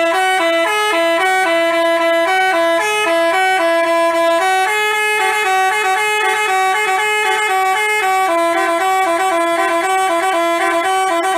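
Telolet Basuri musical bus horn playing a melody of held notes that step up and down. It cuts in and cuts off abruptly.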